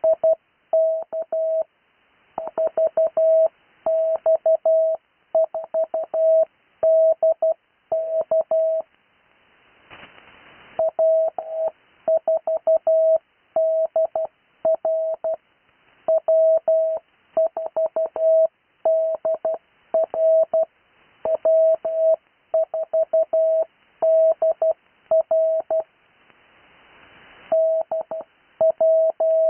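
Morse code (CW) keyed as a single steady tone of about 650 Hz, sending amateur radio callsigns at full character speed without Farnsworth spacing, each callsign repeated three times. Short patches of hiss fill the gaps about ten seconds in and again near the end.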